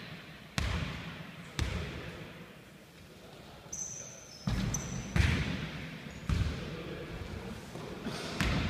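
Basketball bouncing on a wooden gym floor, each bounce echoing in the hall: two bounces about half a second and a second and a half in, then after a lull a run of dribbles in the second half. Sneakers squeak briefly near the middle.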